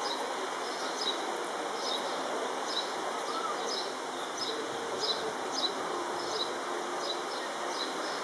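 Small birds chirping, short high chirps about twice a second, over a steady outdoor hiss.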